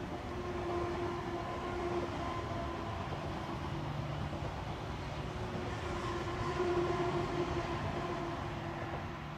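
SBB electric passenger train passing at speed, wheels running on the rails with a steady whine from its electric drive. The sound builds as the train arrives and eases off near the end as the last coaches go by.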